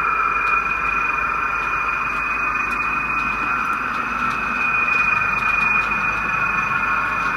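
Sound-fitted model Class 29 diesel locomotive running through at a steady pace, its onboard decoder playing Dapol's diesel engine sound through a small speaker.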